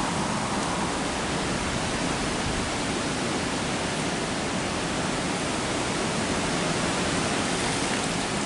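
Steady rushing of water pouring over a canal weir.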